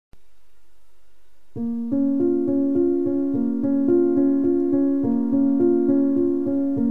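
Background keyboard music of steadily repeated piano-like notes and chords, starting about a second and a half in after a brief dropout and a faint steady hum.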